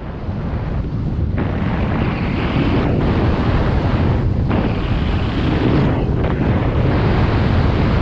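A snowboard hissing through powder snow at speed, mixed with wind rushing over the camera microphone. The sound swells over the first second or so, then holds, with brief dips every second or two.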